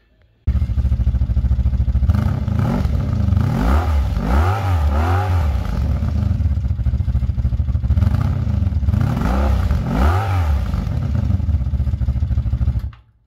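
A vehicle engine running and revved up and back down several times in quick succession, once around the middle and again a few seconds later; it starts and cuts off abruptly.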